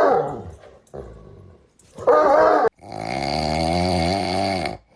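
A dog vocalising: a falling call at the start, a short wavering call about two seconds in, then a long drawn-out wavering call.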